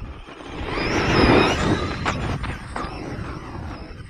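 Radio-controlled truck driving close past at speed over the dirt, its motor and tyres swelling to a peak about a second in and fading away, followed by a few sharp knocks.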